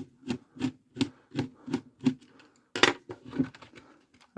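An even series of light clicks, about three a second, with one louder knock a little under three seconds in, as the airsoft rifle's gearbox is worked loose from the upper receiver.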